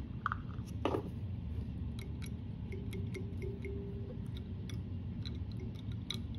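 Scattered small clicks and taps from fly-tying tools being handled, a bodkin applying UV resin, with one sharper click about a second in, over a steady low hum.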